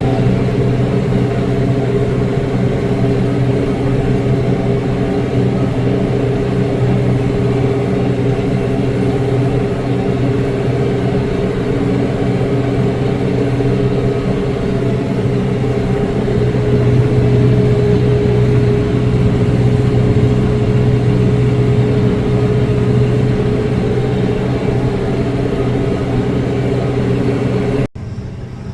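Tractor engine running steadily at a constant speed, a loud even hum that holds for the whole stretch and cuts off suddenly about a second before the end.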